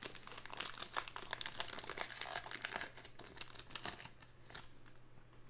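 Crinkling and rustling of a Topps Heritage baseball card pack wrapper as it is torn open and the cards are slid out, with dense crackles that thin out over the last second or so.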